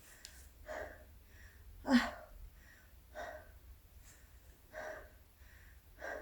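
A woman's short breathy gasps and exhalations, about one a second, one of them briefly voiced about two seconds in.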